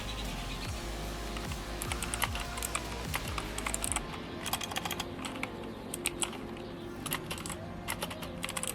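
Typing on a GAMDIAS GD-HERMES E3 60% mechanical keyboard with clicky blue switches, giving a quick, irregular run of key clicks. Faint music plays underneath.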